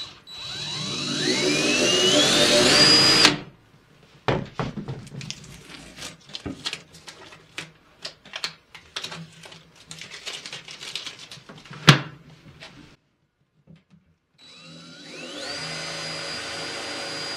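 Cordless drill boring a new knob hole through a painted wooden cabinet door: the motor speeds up with a rising whine for about three seconds and stops suddenly. Then come scattered clicks and knocks as the door is handled, one sharp click among them. Near the end a second drill run speeds up and holds a steady whine for about three seconds.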